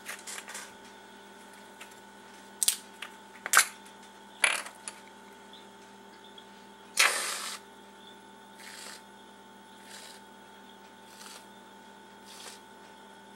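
Aerosol whipped-cream can hissing in short squirts as dollops are piped onto a pie: one louder spurt about seven seconds in, then four fainter ones about every second and a half. A few sharp clicks and taps come first, in the opening five seconds.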